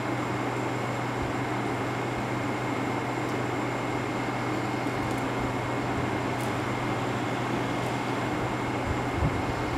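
Steady background hum and hiss, like a running air-conditioning unit or fan, with a thin constant whine above it. A brief soft knock near the end.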